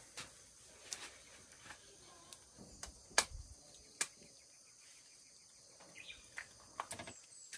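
Scattered light clicks and knocks of kitchen utensils and dishes being handled on a table, the sharpest about three seconds in. Behind them runs a steady high-pitched hum of crickets and insects, with a few bird chirps near the end.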